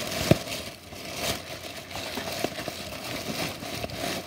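Large white plastic bag rustling and crinkling as it is handled and pulled open, with many short sharp crackles, the sharpest about a third of a second in.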